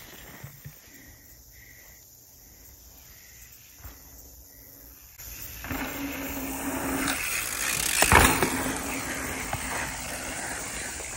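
Mountain bike riding past close by on a dirt trail, its tyre noise building to a loud peak about eight seconds in. Before that there is only faint outdoor sound.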